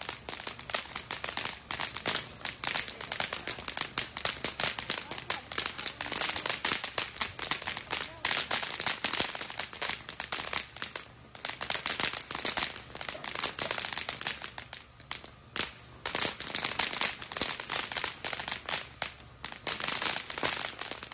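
Consumer fireworks crackling: a dense, rapid run of sharp pops many times a second, going on almost without a break and thinning briefly a little after 11 seconds and around 15 seconds in.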